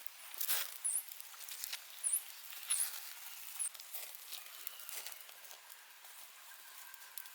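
A small bird chirping, short very high-pitched chirps repeating roughly once a second for the first few seconds, over scattered crackles and rustling.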